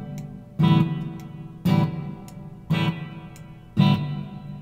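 Gibson SG electric guitar strummed: four chords about a second apart, each ringing and dying away before the next. The guitar plays cleanly, its pickups working.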